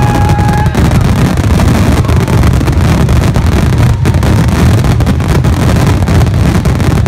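Loud fireworks finale barrage: rapid shell bursts merging into a continuous rumble. A steady whistling tone cuts off about a second in.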